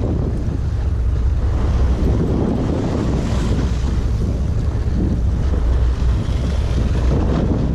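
Wind buffeting the microphone over a steady low rumble and the rush of water from a sportfishing boat at sea.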